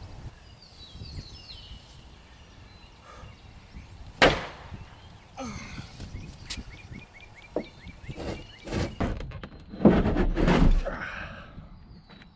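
Bronze sword stabbed down into a car's mild-steel roof: a sharp metal strike about four seconds in, a few lighter knocks, and a louder stretch of banging and scraping near the end as the blade is driven through the roof.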